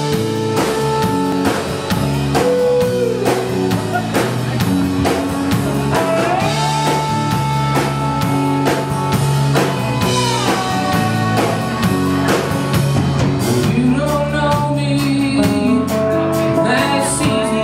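A live band playing a blues-rock song: acoustic and electric guitars over a steady drum-kit beat, with a man singing.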